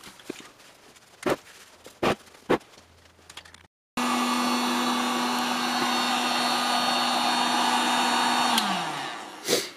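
A few short, sharp clicks over a quiet background, then a heat gun blowing hot air into the ammo-can forge's burner hole to dry the damp insulation lining, running steadily with a steady hum. Near the end it is switched off and winds down, its pitch falling, and a brief loud whoosh follows.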